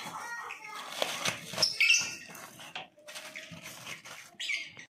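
Plastic bags rustling and knocking as frozen bagged food is handled in a freezer compartment, a run of short crackles and clicks.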